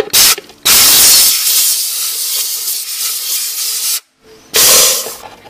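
Compressed-air blow gun hissing in three loud blasts: a brief puff, a long blast of about three seconds, then a shorter one near the end.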